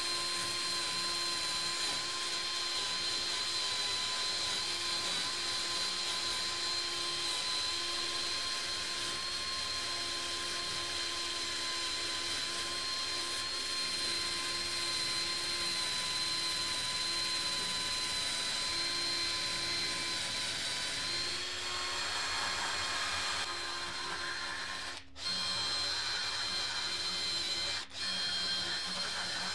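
A power-driven wire wheel spinning against a rusty bolt and nut clamped in a vise, brushing the rust off with a steady whine. The sound briefly drops out twice near the end.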